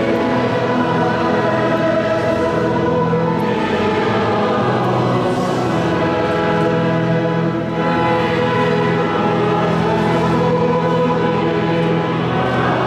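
Choir singing sacred music over long, held chords, echoing in a large stone cathedral.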